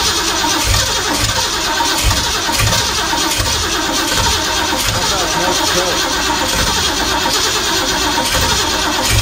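Long-stored racing Bronco's engine being cranked on the starter and firing unevenly, with uneven low thumps about every half second, not settling into a steady run. The engine only basically fires and won't run consistently, which the group puts down to the carburettor.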